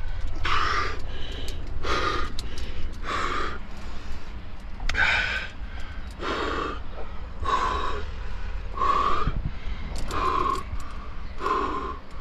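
A rock climber's heavy, rhythmic breathing under exertion on the wall: about nine loud, forced breaths, roughly one every second, over a steady low rumble.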